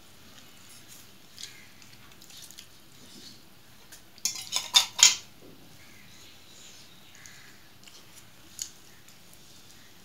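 Stainless steel bowl clinking against a steel plate, four or five sharp clinks in quick succession about four seconds in, as curry is tipped onto the plate and the bowl set down. Around them, faint soft squishing of rice being mixed by hand.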